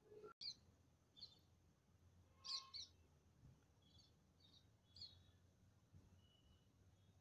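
Faint bird chirps over near silence: short high calls every second or so, the loudest pair about two and a half seconds in.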